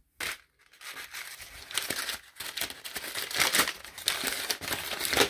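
A sheet of paper being crumpled and handled in the hands: a dense crinkling crackle that begins a moment in.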